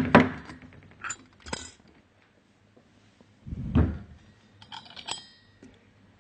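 Metal parts of a DESMI NSL centrifugal pump clinking and knocking as it is taken apart by hand at the impeller and shaft seal: sharp clinks at the start and about a second in, a heavier knock a little past three and a half seconds, and a short ringing clink around five seconds.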